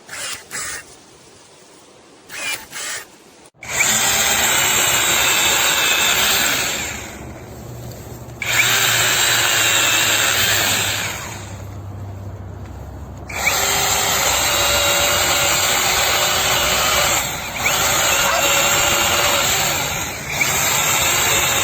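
Supstable battery-powered mini chainsaw with a 1000 W brushless motor running in three long runs with a steady whine, easing off twice between them and coming back on sharply.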